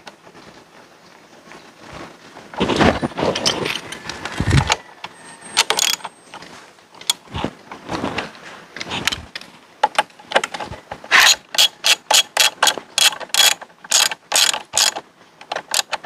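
Socket ratchet wrench clicking as a bolt on the scooter's rear wheel assembly is turned, with a scrape of tools and parts a few seconds in. Near the end it speeds into a steady run of sharp clicks, about three a second.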